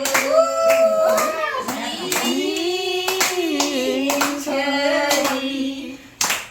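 A small group singing a song in long held notes while clapping along in a steady beat, about two claps a second.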